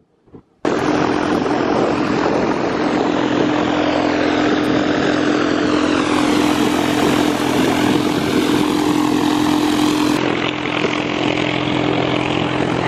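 Propeller aircraft engine running steadily, a loud drone with a constant low hum that starts suddenly about half a second in.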